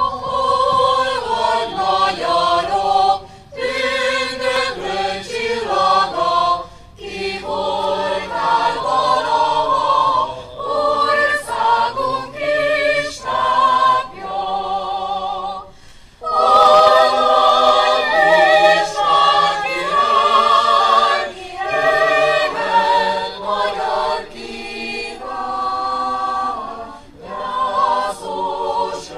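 A choir singing in several voice parts, in phrases with short breaks between them.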